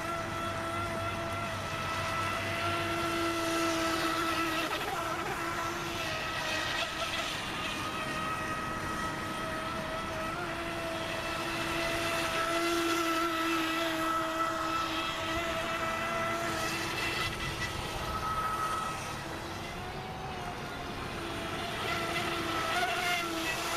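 Radio-controlled boat's brushless electric motor driving an outboard through a flex shaft, running at speed with a steady high whine over water hiss; the pitch wavers a little with throttle and the sound fades slightly near the end before picking up again.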